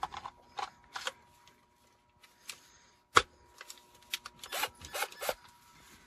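Wood scraping and rubbing in short bursts as pieces of wood are handled, with a sharp knock about three seconds in and a quick run of scraping strokes near the end.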